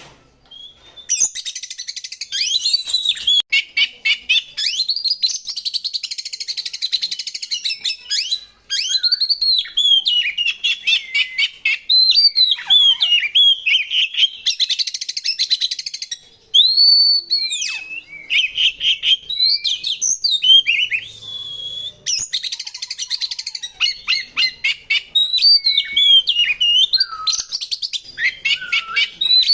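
Oriental magpie-robin (kacer) singing a long, varied song. Loud whistled notes slide up and down, broken by stretches of fast, harsh chattering rattles, with two short pauses along the way.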